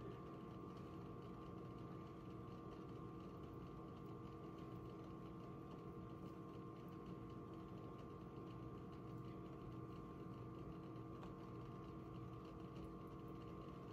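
Faint steady mechanical hum with several constant tones and no distinct knocks or splashes.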